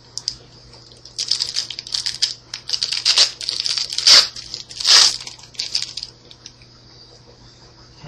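A Yu-Gi-Oh booster pack's foil wrapper being torn open and crinkled by hand: a run of crackling rustles starting about a second in, loudest around four and five seconds in, stopping about six seconds in.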